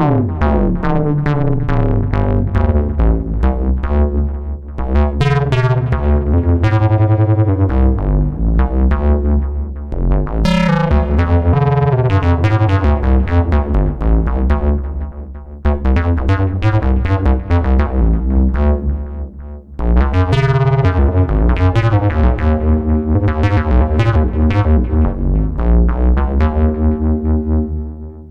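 Ad-vantage 03m semi-modular analog synthesizer playing: a fast run of short, sharp-edged notes over a heavy bass line, in several phrases with brief dips between them, stopping abruptly at the end.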